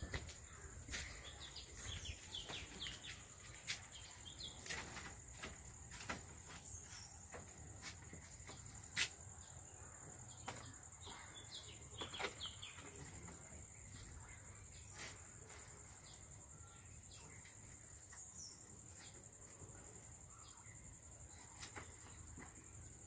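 A steady high-pitched insect drone, crickets or similar, with a few bird chirps and scattered sharp knocks and clicks.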